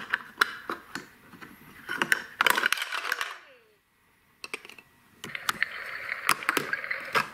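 Plastic buttons on a VTech Sit-to-Stand Ultimate Alphabet Train's toy phone panel clicking again and again as they are pressed, with two short stretches of voice-like sound in between.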